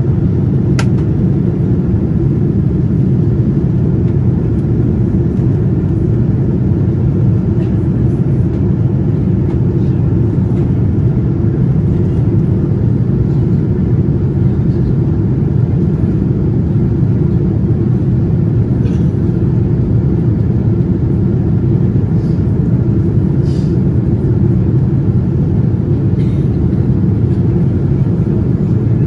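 Steady low rumble inside the cabin of a Boeing 787-9 in flight on its descent toward landing: air rushing past the fuselage and the GEnx engines running. A faint click sounds about a second in.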